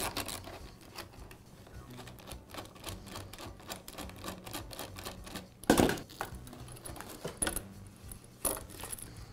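Worm-drive hose clamp being unscrewed with a screwdriver: a fast run of light clicks as the screw turns against the slotted band. A louder clack comes about six seconds in.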